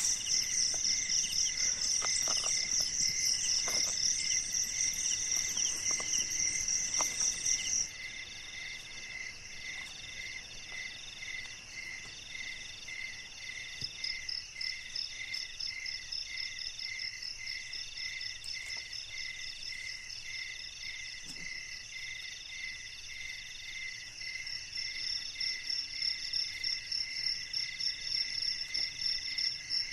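A night chorus of crickets and other insects: several chirps and trills overlap in steady, even rhythms, one a quick pulsing chirp, another a longer buzz repeated about once a second. A loud high trill drops away suddenly about eight seconds in.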